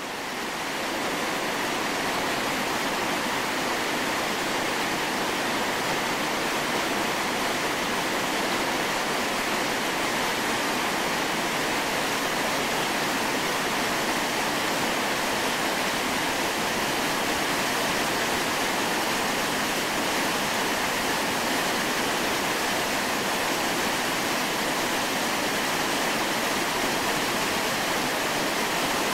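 Whitewater rapids of a steep mountain river rushing among boulders: a steady, unbroken wash of water noise.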